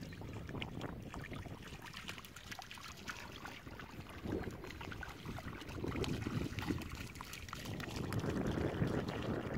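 A dog wading through shallow river water, its paws splashing irregularly, growing a little louder after about six seconds. Wind rumbles on the microphone underneath.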